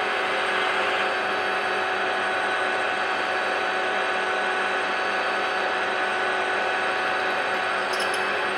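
Centre lathe running, with a twist drill in a tailstock Jacobs chuck being wound into the spinning metal workpiece and cutting swarf. It is a steady gear-driven hum with a drilling hiss, and a few faint ticks come near the end.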